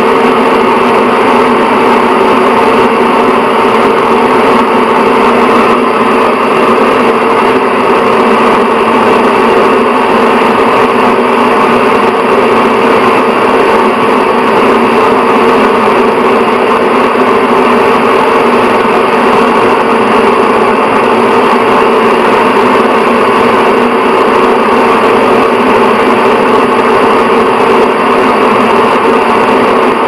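Bathroom exhaust fan running steadily: an even rush of air with a constant motor hum made of several steady tones.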